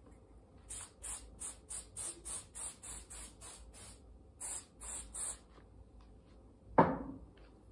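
Aerosol insect spray can fired in a rapid string of short hissing spurts, about three a second, then after a short pause three more, aimed at a fly. Near the end comes a single sharp thump.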